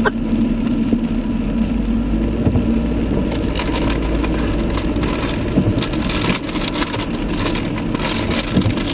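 Car driving on a wet road in rain, heard from inside the cabin: a steady low engine and tyre hum. About three and a half seconds in, raindrops start hitting the windscreen in dense clicks.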